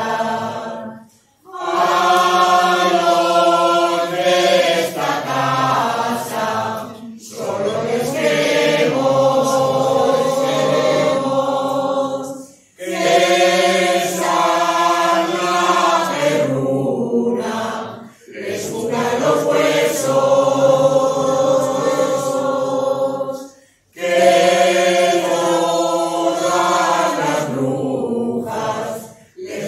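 Mixed choir of men's and women's voices singing a Spanish folk song together, in phrases of about five seconds with brief pauses for breath between them.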